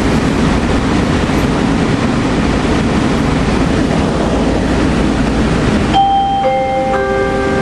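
Steady noise inside a LINK Train people-mover car, then about six seconds in a three-note descending chime with each note ringing on.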